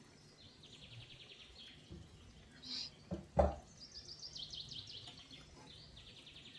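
Bird trills: quick, evenly spaced runs of high notes, heard three times. About three and a half seconds in there is a single sharp knock, the loudest sound.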